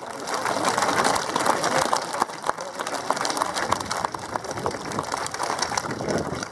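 A large crowd applauding, the clapping swelling just after the start and then running on steadily.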